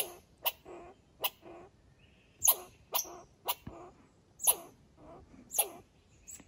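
Red squirrel giving a series of sharp barking alarm calls, about eight in all, spaced half a second to a second apart.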